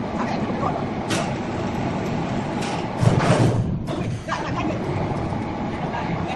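Sawmill machinery running, a steady mechanical din from the band saw mill, swelling louder for about a second roughly three seconds in.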